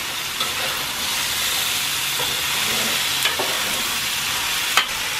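Sliced snake gourd, onion and tomato sizzling in an oiled wok as they are stir-fried with a metal spoon. A steady hiss runs under a few sharp knocks of the spoon against the pan; the loudest knock comes near the end.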